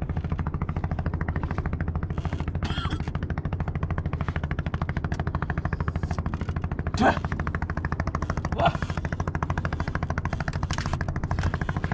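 Fishing boat's engine running with a rapid, even putt-putt. Two short retching sounds come about seven and nine seconds in from a seasick angler vomiting over the side.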